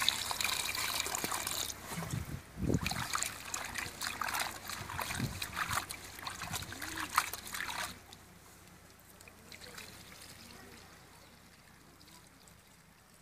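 Water poured from a height into a steel bowl of raw chicken pieces, followed by irregular splashing and sloshing as hands rub and wash the chicken in the water. It quietens after about eight seconds.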